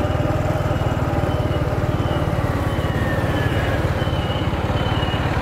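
Motorcycle engine running steadily, an even low pulsing that does not change pace.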